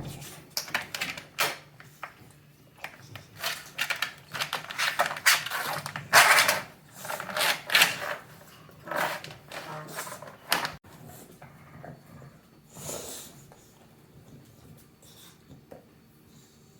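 British bulldog snoring: a quick, irregular run of short, noisy breaths, loudest midway, that dies down to a few weaker ones after about eleven seconds.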